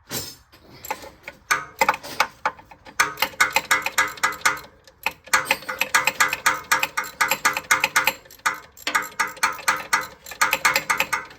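Hand ratchet with a deep-well socket clicking in quick back-and-forth strokes, working a bolt loose in several runs with short pauses between them.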